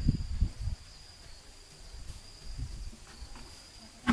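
Insects trilling steadily in one thin, high tone. Loud low rumbling thumps fill the first second, then it goes quieter.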